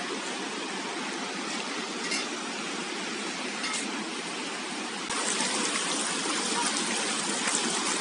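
Steady rush of flowing water, a waterfall and its stream. It becomes louder about five seconds in.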